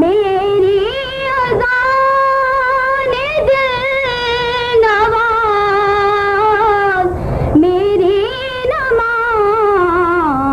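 A young girl's voice singing a naat unaccompanied, drawing out long held notes with a wavering, ornamented pitch, with two short breaks about a second and a half in and again around seven seconds in.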